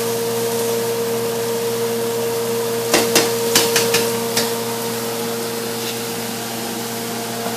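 A steady motor hum, like a kitchen fan, runs throughout. About three seconds in comes a cluster of five or six sharp knocks and clatters of kitchen utensils, lasting about a second and a half.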